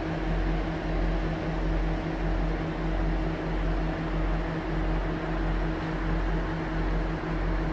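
KiHa 47 diesel railcar's engine idling while the railcar stands, a steady low hum with an unchanging pitch and a deep rumble beneath it.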